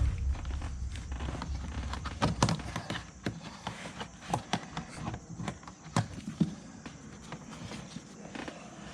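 Irregular clicks and light knocks of hands and tools working on a car's inner door handle and door trim, with a low rumbling thump of handling at the start.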